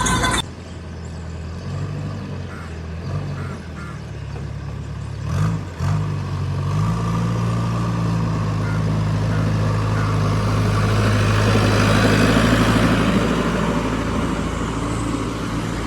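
Heavy diesel machinery engine running with a low, steady drone that grows louder from about seven seconds in, as if working under load, then eases slightly near the end.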